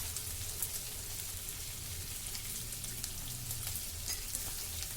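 Boiled potato pieces frying with spices in oil in a pan: a steady sizzle with small scattered crackles.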